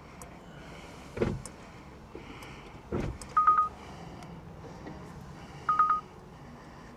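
Two dull thumps, then two short electronic beeps of the same pitch a little over two seconds apart, each starting with a quick stutter and held briefly.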